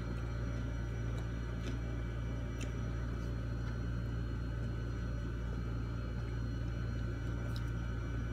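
A steady low hum fills the room, with a few faint soft clicks here and there from eating by hand.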